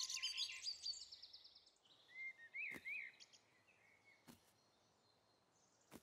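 A sparkling musical sting fades out in the first second or so. About two seconds in come a few short, faint cartoon bird tweets, then near silence.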